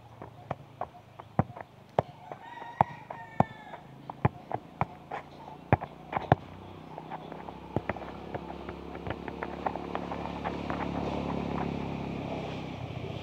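A football being juggled on the foot: a run of about a dozen sharp thuds of the ball being kicked up, roughly one every half second, which stop about six seconds in.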